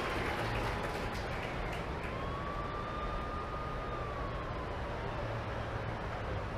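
City traffic soundscape: a steady low rumble with a distant siren that rises about two seconds in, holds, then slowly falls away.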